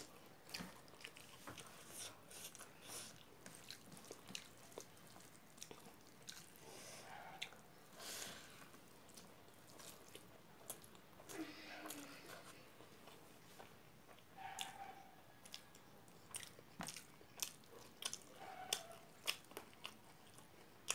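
Faint close-up chewing and lip smacking as a mouthful of rice and fermented-soybean curry is eaten by hand: a steady string of small wet clicks.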